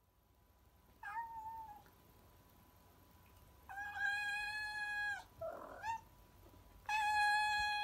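A domestic cat meowing: a short meow about a second in, then two long drawn-out meows held at a steady pitch, with a brief rougher sound between them; the second long meow starts near the end.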